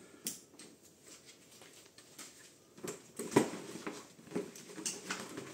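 Handling noise as clips and gear are packed into a 40-litre dry bag: a few light clicks, then rustling of the stiff bag fabric and knocks from about three seconds in, the loudest a single sharp knock.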